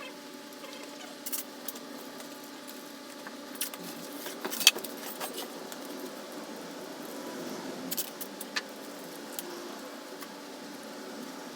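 Scattered metallic clinks and clicks of tools and parts being handled during motorcycle engine removal, over a steady hum. The sharpest clink comes a little before the middle.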